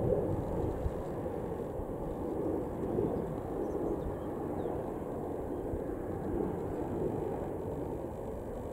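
Engine noise of an RAF Tornado GR4's twin RB199 turbofans in flight: a steady low rumble without a clear tone.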